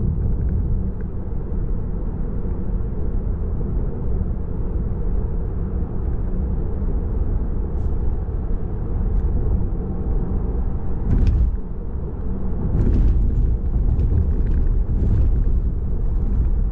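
Steady road and tyre rumble heard inside the cabin of a Tesla electric car driving along, with a few short knocks from about eleven seconds in.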